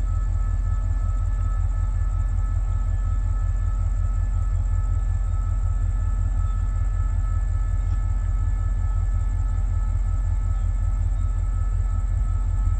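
Diesel locomotive idling: a steady, loud low rumble with a fast, even pulse, and a faint steady whine above it.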